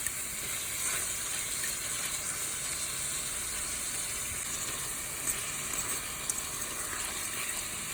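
Ground beef browning in a pot on the stove, frying with a steady sizzle.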